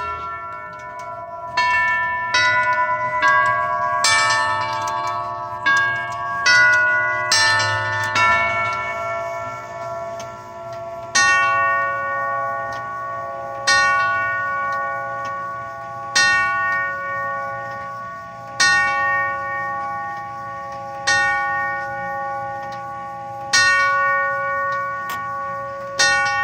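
Urgos UW 3/18/A five-tube grandfather clock movement chiming on its tubular bells: first a melody of quickly struck notes ringing into each other, then, about eleven seconds in, the hour strike on a single tube, seven slow strokes about two and a half seconds apart, each ringing on as it fades.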